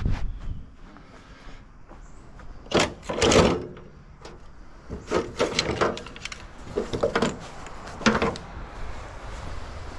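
Scrap being handled and moved: a series of irregular knocks, bumps and scrapes, the loudest and longest about three seconds in.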